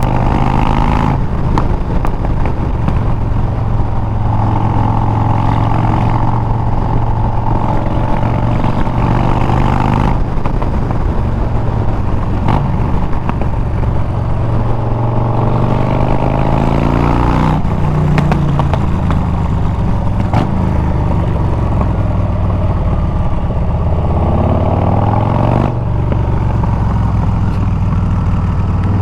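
Harley-Davidson Milwaukee-Eight 114 V-twin running through a Bassani exhaust as the bike rides along. The engine pitch breaks off and climbs again about four times, like gear changes under acceleration.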